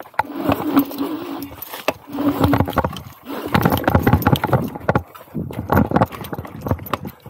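Electric scooter rattling and clattering as it rides over a bumpy, soft sandy trail, with a wavering hum for the first couple of seconds. The knocking gets denser and louder about halfway through.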